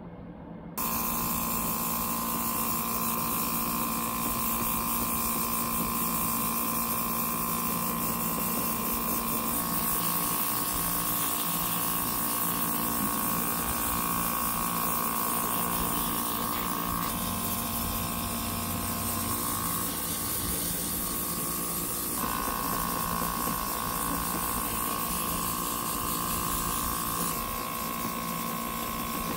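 Airbrush spraying paint with a steady hiss of air over the hum of its small electric compressor, starting suddenly about a second in. The compressor's tone shifts several times along the way.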